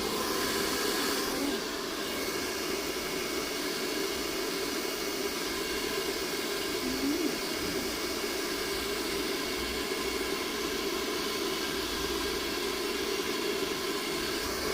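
Pet hair dryer switched on and running steadily: a constant rush of air over a motor whine of several steady tones.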